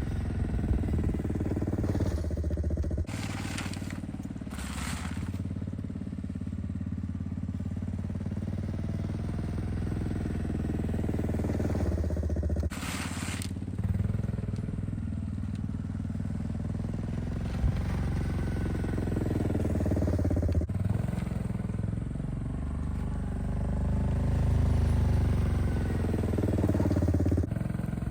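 1992 Honda Fourtrax ATV's single-cylinder engine running under load while pushing a snow plow blade, its note rising and falling throughout. A few brief scraping noises from the blade are heard, about three and a half, five and thirteen seconds in.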